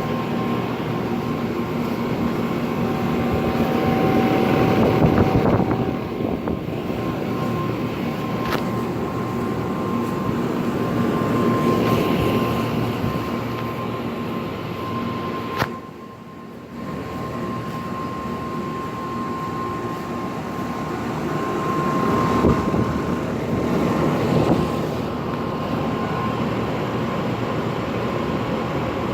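Outdoor central air conditioner condenser units running: steady fan noise and compressor hum with a steady high whine, broken about halfway by a click and a brief drop in level.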